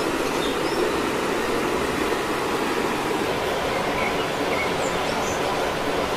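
Steady rush of flowing water, even and unbroken, with a few faint high chirps over it.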